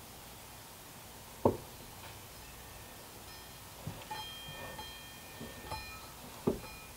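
Light metal knocks and clicks as a part is seated and rocked by hand inside the NP246 transfer case's steel clutch drum, with one sharper knock about a second and a half in. Faint steady high ringing tones sound over the second half.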